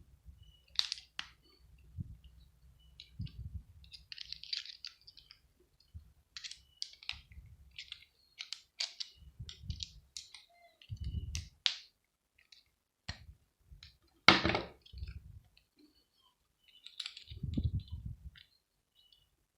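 Metal cutters snipping and cracking the hard plastic casing of a multi-socket plug adaptor: a run of irregular sharp clicks and snaps, with one loud crack about fourteen seconds in. Dull thumps of the adaptor and tools being handled on the work surface come in between.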